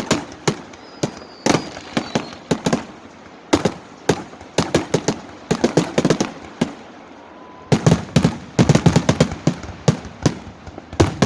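Firecrackers going off in quick clusters of sharp bangs, then a brief lull, followed by a dense run of rapid cracks.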